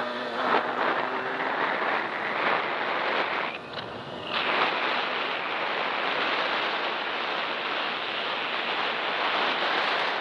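Steady rushing wind noise on the microphone of a moving 50cc dirt bike, with the engine's note buried in it. The noise dips briefly about four seconds in.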